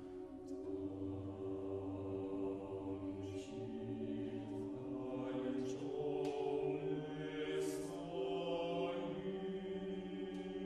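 Mixed chamber choir of sopranos, altos, tenors and basses singing unaccompanied, holding slow, sustained chords on an open vowel while the lowest voice steps upward. Several short hisses stand out above the chords.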